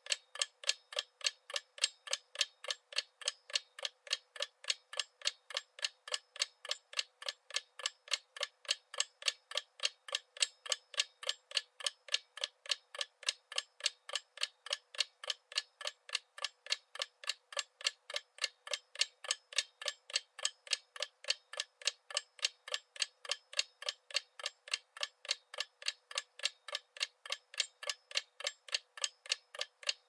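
Clock ticking: fast, even, thin ticks, about three a second, steady throughout.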